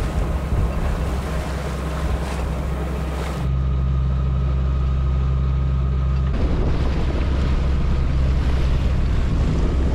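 Sailing yacht's inboard engine running steadily under way, a low hum, with wind on the microphone and water rushing past the hull. The hum is louder from about a third of the way in.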